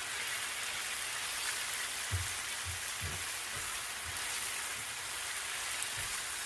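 Onions and dried Egyptian spinach leaves frying in oil in a pan on medium heat: a steady crackling sizzle as they crisp up. A few soft low knocks come through it from about two seconds in.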